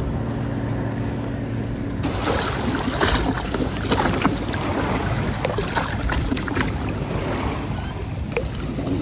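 A boat's motor runs with a steady low hum for about two seconds, then cuts abruptly to water lapping and splashing against a rock edge, with small sharp splashes and knocks.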